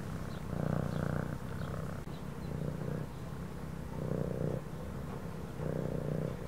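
Domestic cat purring, the purr swelling and fading with each breath, about four times in a slow rhythm.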